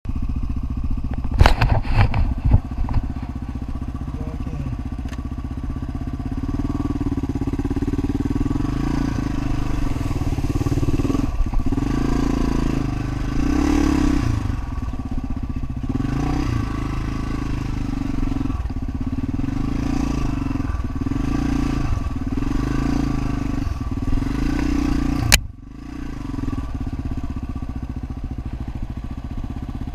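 Honda XR500's single-cylinder four-stroke engine running while ridden at low speed, the revs rising and falling again and again. A few sharp knocks come about two seconds in, and the sound drops out suddenly for a moment near the end.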